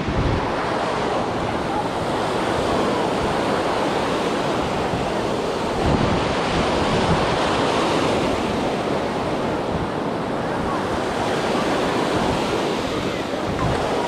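Steady wash of ocean surf on the beach, with wind noise on the microphone.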